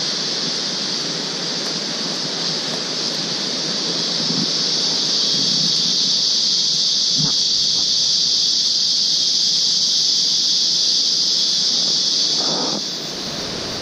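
Steady, high-pitched drone of forest insects, the cicada-like chorus of a tropical forest. A brief rustle of leaves comes near the end, where the drone drops in level.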